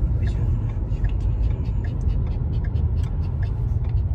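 Steady low rumble of a car on the move, heard inside the cabin, with scattered light ticks.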